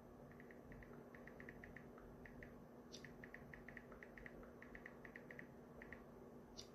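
Near silence: faint room tone with a steady low hum and many faint, light clicks, mostly in quick pairs.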